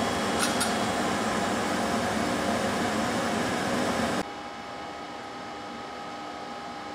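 Okuma LC50 CNC lathe running with a steady whirring machine hum carrying a few faint steady tones. About four seconds in, the sound drops abruptly to a quieter steady hum.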